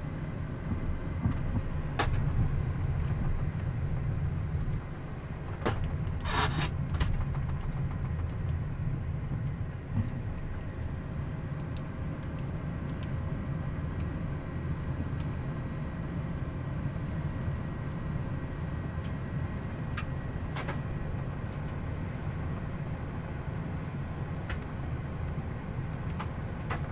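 Steady low rumble inside the cockpit of a Gulfstream G550 taxiing with its Rolls-Royce BR710 turbofans at idle. A few faint clicks, and a short hiss about six seconds in.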